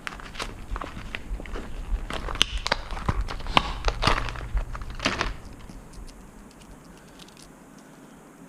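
A packet of tubeless valves being torn open and handled, crinkling and crackling in quick irregular clicks that stop about five seconds in.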